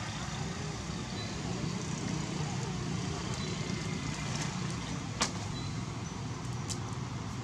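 Steady low background rumble with one sharp click about five seconds in.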